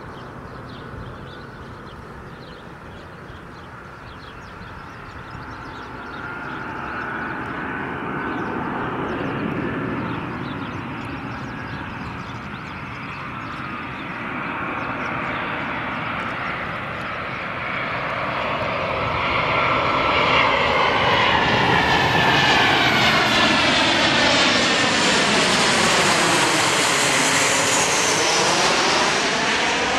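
Boeing 737-800's CFM56-7B jet engines on landing approach, the noise growing steadily louder as the airliner comes in and passes low overhead, with a sweeping, phasing whoosh as it goes over near the end.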